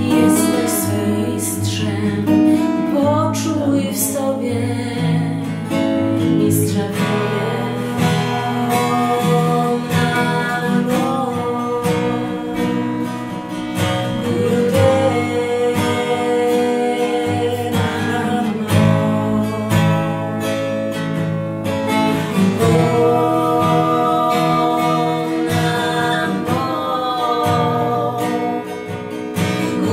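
Acoustic guitar strummed and picked under two women's voices singing a slow mantra chant.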